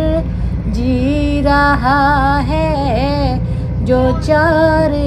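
A solo voice singing a slow melody in long held, wavering notes over a steady low rumble from the moving train.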